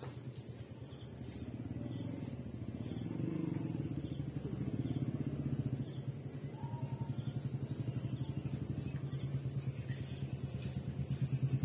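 An engine running with a low, rapidly pulsing note that grows louder toward the end.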